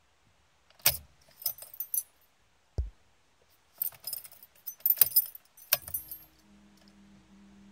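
Keys jangling on the keyring while the ignition key of an R33 Nissan Skyline GT-R is turned off and back on; the switch clicks several times, with a dull thump about three seconds in. About six seconds in, with the ignition back on, a faint steady electrical hum starts; the engine is not running.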